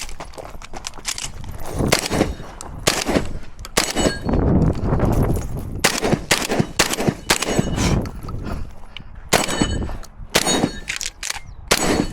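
A string of shotgun shots fired at irregular spacing, in quick pairs and singles with short gaps between groups.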